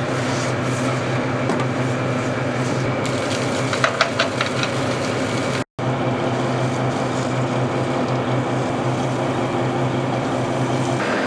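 Rescue lifeboat's engine running steadily, a constant low hum. A few quick metallic clicks sound about four seconds in, and the sound drops out for a split second just before the middle.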